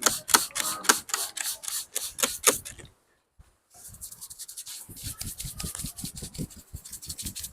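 Rapid scraping and rubbing strokes on a customer's head during a barber's head shave, about three or four strokes a second. Sound drops out briefly about three seconds in, then the strokes return quieter and faster.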